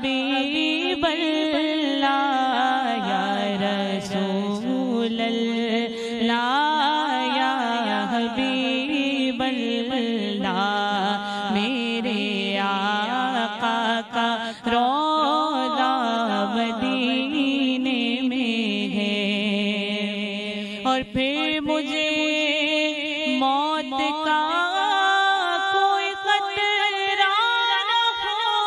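A woman singing a naat, an Urdu devotional song in praise of the Prophet, solo into a microphone, with long held notes that bend and waver in pitch.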